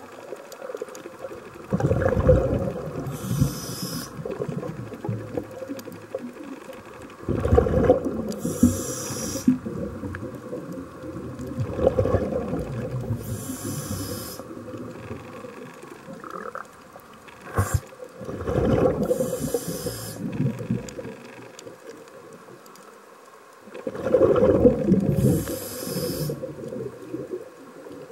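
Scuba diver breathing underwater through a regulator: five breaths about five to six seconds apart. Each is a loud low rush of exhaled bubbles, followed by a shorter high hiss from the regulator.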